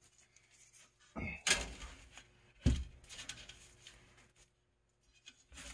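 Handling noise from a coil of fuzzy pile weather stripping being unwound and laid along a vinyl window frame: a few sudden soft knocks with rustling between them.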